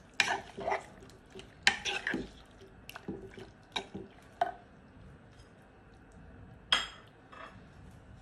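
Metal spoon stirring raw salmon cubes in a wet chili-garlic dressing, with irregular clinks and scrapes against the bowl and soft squelching. Most of the strokes fall in the first four and a half seconds, with one last sharp clink near the end.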